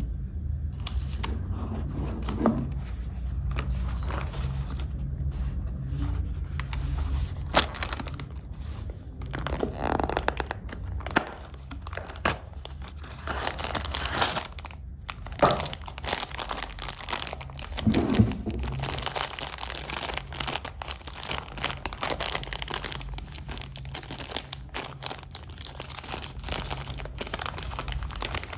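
Snack packaging being handled and opened: a Meiji Hello Panda cardboard box is torn open and its foil inner bag is crinkled and torn, in an irregular run of sharp crackles, clicks and rustles over a steady low hum.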